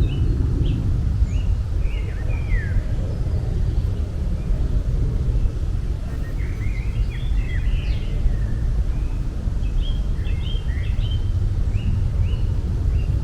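Birds chirping in short, high calls that come in scattered clusters, over a steady low rumble of outdoor noise.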